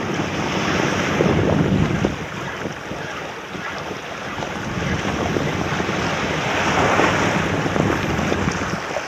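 Waves washing and breaking over the rocks at the water's edge, with wind buffeting the microphone. The wash swells twice, about a second in and again near seven seconds.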